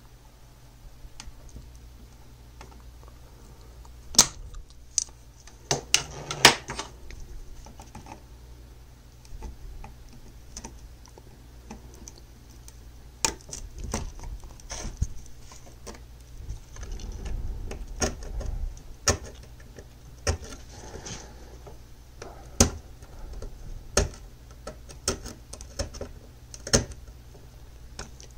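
Irregular sharp clicks and taps of small metal hand tools, a soldering iron tip and needle-nose pliers, against a laptop motherboard, with a rougher stretch a little past halfway, as a fried surface-mount zener diode is worked off its pads.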